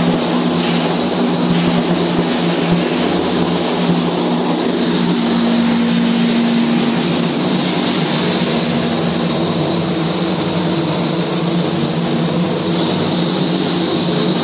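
Flux-cored arc welding overhead: the arc sizzles steadily against a loud, unbroken machine roar with several fixed hums and a high whine.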